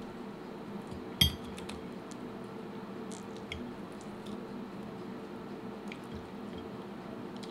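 Stainless knife and fork cutting through cheese toast on a ceramic plate, with one sharp ringing clink of metal against the plate about a second in and a few faint clicks after. A steady low hum runs underneath.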